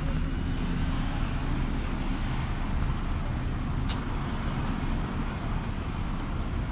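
City street traffic: a steady rumble and hiss of passing cars, with one short sharp click about four seconds in.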